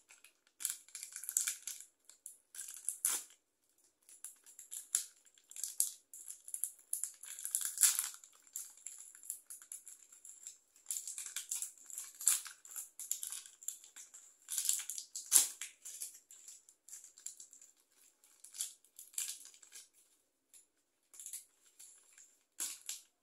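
Plastic wrapper of a chocolate wafer bar crinkling as it is worked open by hand, in irregular bursts of rustling with short pauses between.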